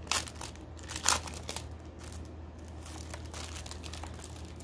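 Packaging crinkling and rustling as it is handled and opened, with two louder rustles about a second apart near the start. A steady low hum runs underneath.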